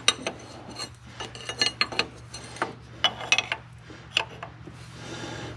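Wrench clinking and tapping on the fuel line fitting as the line is tightened onto a diesel fuel transfer pump: irregular sharp metallic clinks, with a short rasping scrape near the end, over a steady low hum.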